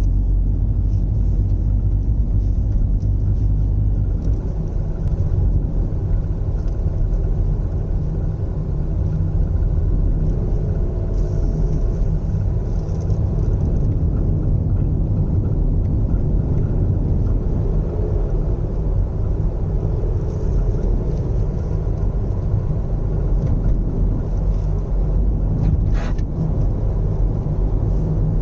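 Nissan Serena C25 minivan on the move: a steady low rumble of engine and road noise, with one short sharp sound near the end. The owner is trying to capture an abnormal 'jaa' noise from this 13-year-old, 110,000 km car.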